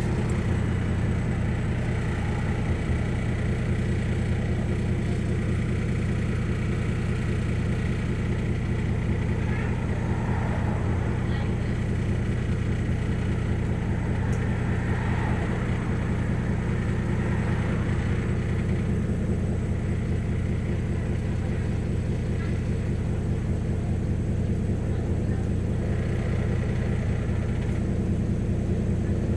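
Alexander Dennis Enviro400 MMC double-decker bus engine idling steadily while the bus stands still, heard from inside the upper deck as a constant low hum.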